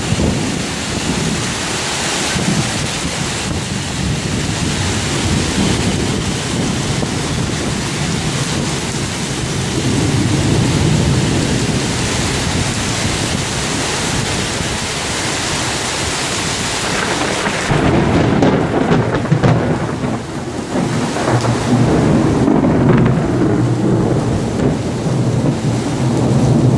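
Torrential rain pouring down in strong, gusting storm wind. In the second half the hiss of the rain thins and a heavier low rumbling comes to the fore.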